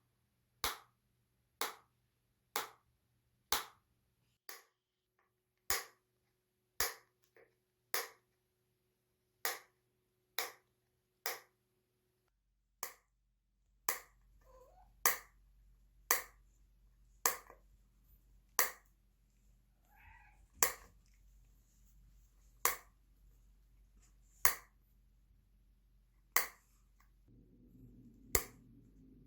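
Metal cat food can clicked over and over to call cats: sharp single clicks about once a second, repeated some two dozen times.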